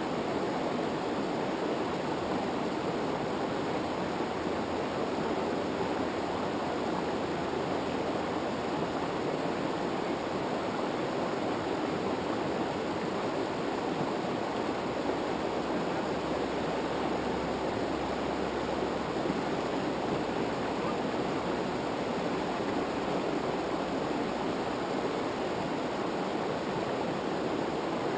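Steady rushing of fast-flowing river water over rapids, an even unbroken roar.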